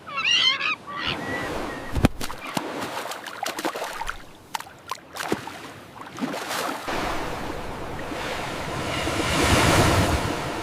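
Seagull cries in the first second, then surf washing ashore with a few sharp knocks and clicks. The waves swell to their loudest near the end.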